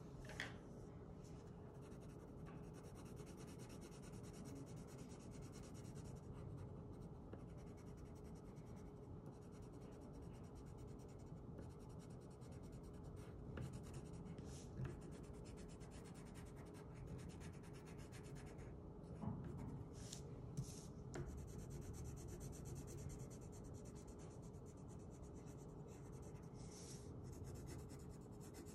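Coloured pencil scratching faintly on paper as it colours in a drawing, with a few brief light knocks.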